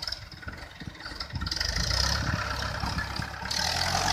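Mahindra 575 DI tractor's diesel engine working under load as it hauls a heavy hay trailer out of a muddy dip. The engine grows louder about a second and a half in, and a hiss joins near the end.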